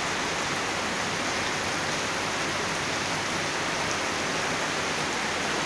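Heavy tropical rain pouring down in a steady hiss, falling on tiled and corrugated roofs.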